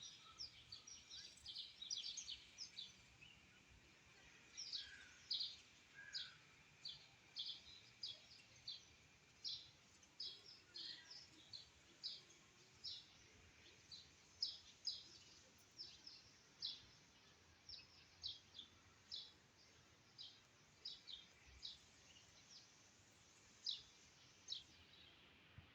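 Small birds chirping: a steady run of short, high chirps, one to two a second, thicker in the first few seconds, over faint background hiss.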